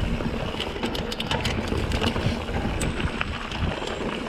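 Mountain bike rattling and clattering over a rocky trail, with wind rushing on the microphone; a run of sharp clicks about a second in.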